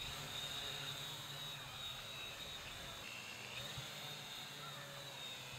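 3D-printed quadcopter's electric motors and propellers running steadily in flight, a constant whine with a low hum beneath.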